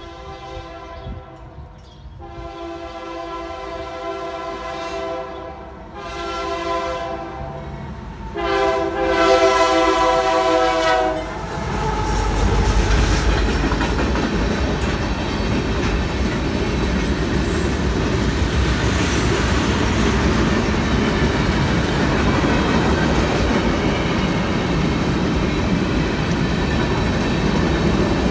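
CSX freight train approaching a grade crossing, its locomotive air horn sounding the crossing signal of four blasts (long, long, short, long) and growing louder. About twelve seconds in the locomotive passes with a low rumble. Then covered hopper cars roll by with a steady clatter of wheels on the rails.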